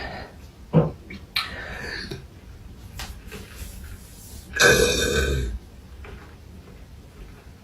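A woman burping: a short burp about a second in, then a long, loud burp about four and a half seconds in that lasts about a second.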